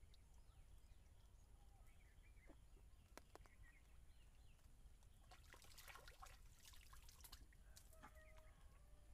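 Near silence: faint outdoor ambience with small birds chirping now and then, and a short run of faint clicks and crackles about five to seven seconds in.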